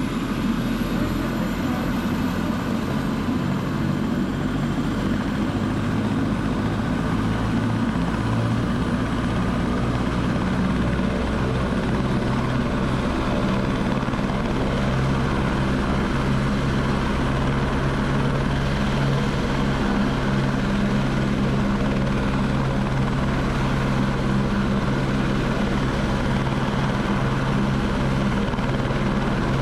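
Small camera drone's propellers and motors buzzing in flight, a steady hum.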